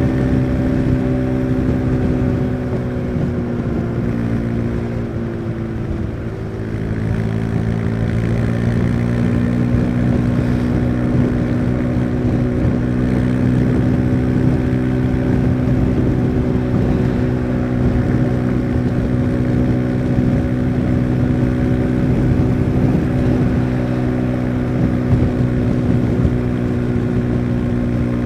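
Husqvarna Svartpilen 401's single-cylinder engine running under way. It eases off a few seconds in, the pitch dipping briefly, then picks back up and holds a steady speed.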